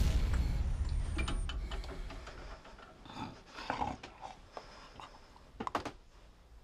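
An old man's laboured breathing under an oxygen mask, mixed with scattered small clicks. A low rumble opens the sound and fades over the first two seconds or so.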